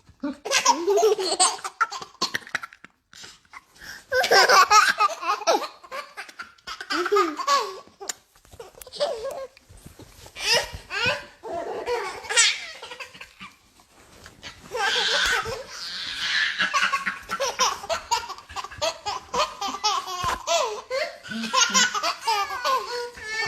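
A baby laughing in repeated bouts of giggles.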